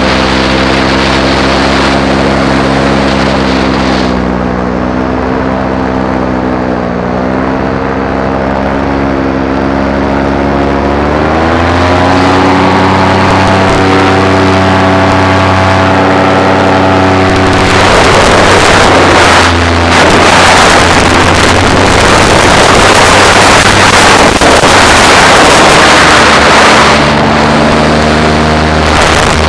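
Paramotor engine and propeller running in flight. The pitch sags slightly, then climbs as the throttle opens about eleven seconds in. For much of the second half, wind rushing over the microphone largely covers the engine, which comes through clearly again near the end.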